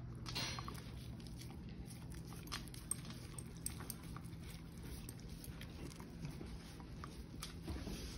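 Small dog gnawing kernels off a corn cob: irregular crunching bites with sharp little clicks of teeth, over a faint steady low hum.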